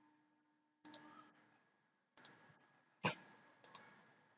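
Faint clicks of a computer mouse button, four of them spread a second or so apart, the third the loudest.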